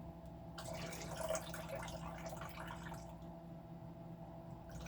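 Liquid trickling and dripping out of an opened can of pink salmon as it is drained, busiest in the first few seconds and then thinning to a few drips.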